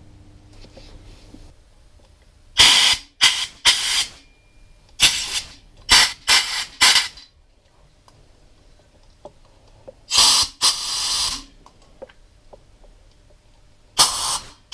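Pressurised spray hissing in about ten short blasts, grouped in clusters of two to four with pauses between, the two blasts just after the middle a little longer.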